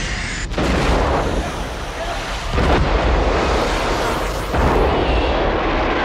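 Film sound effects of eruptions: a loud rumbling rush of blasting gas and debris, with a fresh explosive burst about every two seconds.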